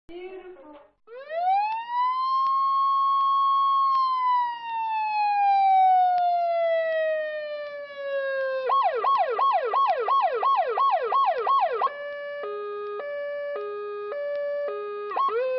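Electronic emergency-vehicle siren cycling through its modes. It starts with a long wail that rises, holds and then slides slowly down. About nine seconds in it switches to a fast yelp of about three cycles a second, then to a two-note hi-lo tone near twelve seconds. Near the end it starts rising again.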